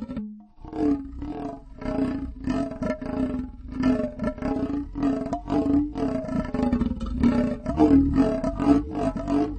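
Flexible saw blade being bent and wobbled for a cartoon sound effect, giving a wavering, warbling metallic tone. It pulses in repeated wobbles about two a second, after a brief break just after the start.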